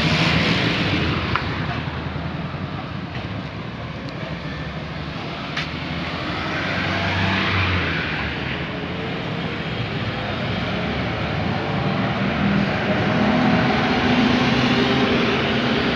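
Road traffic at an intersection: the engines and tyres of passing cars and trucks make a steady noise. Near the end a steady engine note grows louder.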